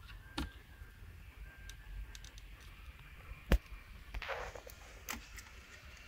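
Small plastic clicks and rustling from a mirror turn-signal lamp and its wiring connector being handled and fitted, with one sharp plastic snap about three and a half seconds in.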